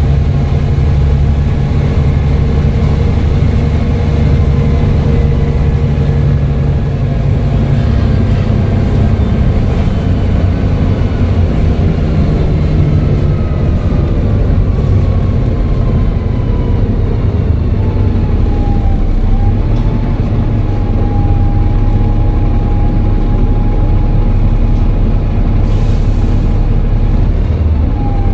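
Volvo B7TL double-decker bus's six-cylinder turbodiesel running steadily, a low drone under a high turbo whistle. The whistle slides down in pitch over several seconds, then holds steady, dipping briefly twice.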